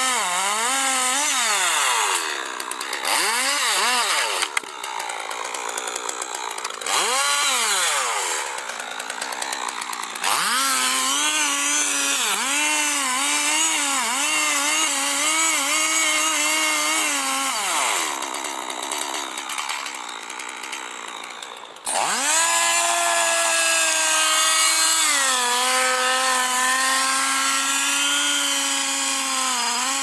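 Large Stihl chainsaw cutting into the base of a huge tree trunk. The engine revs up and falls back several times, then runs at high speed with its pitch wavering as the chain bites into the wood. The sound changes abruptly several times between stretches.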